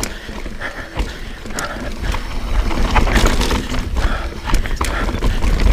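Mountain bike riding down a rough trail: wind rumbling on the camera microphone and tyres on dirt, with the bike rattling and knocking sharply over bumps many times. The rumble grows louder about two seconds in.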